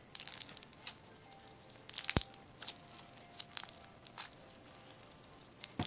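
Clear slime packed with pearl beads being squeezed and kneaded by hand, giving irregular crunchy crackles and pops, loudest about two seconds in.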